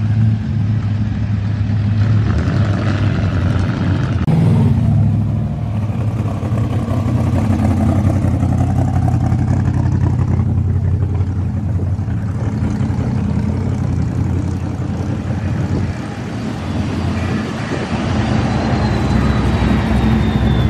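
A line of modified cars cruising slowly past close by, their engines running loud and low, one after another, with a short rev about four seconds in. A thin high whistle drifts and falls near the end.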